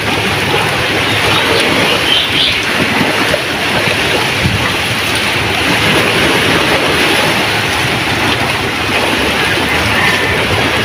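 Wind-driven choppy sea washing in the shallows around moored outrigger boats: a steady, loud rush of waves and wind.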